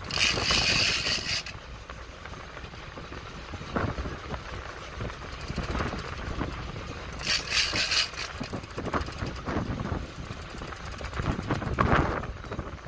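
Big-game trolling reel buzzing in two high-pitched bursts as a hooked fish is fought: one for about a second and a half at the start and another about seven seconds in. Steady wind and boat noise underneath.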